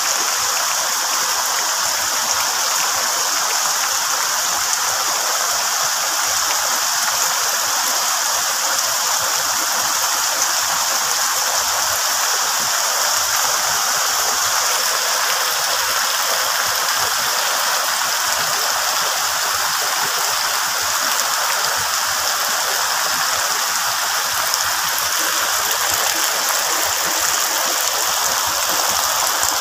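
Steady rain falling on the broad leaves of banana plants and trees and on leaf litter below, an even hiss with no breaks.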